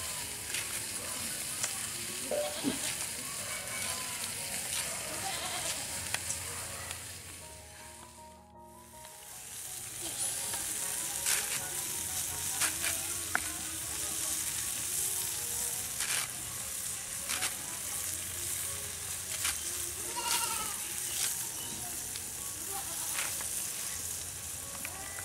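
Bathua greens being cut by hand against a fixed boti blade: light, repeated clicks and snips as the stems are cut, with the leaves rustling over a steady hiss.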